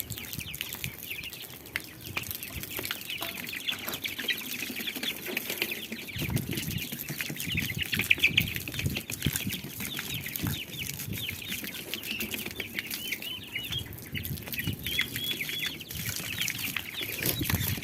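A flock of young poultry, chicks and ducklings, peeping continuously in rapid, high-pitched cheeps. A lower, rougher layer of sound joins in about six seconds in.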